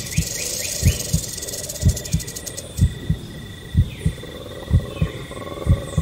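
Heartbeat recording: a double lub-dub thump about once a second. Behind it run steady high rainforest insect tones, and for the first half a western diamond-backed rattlesnake's rattle makes a high dry buzz.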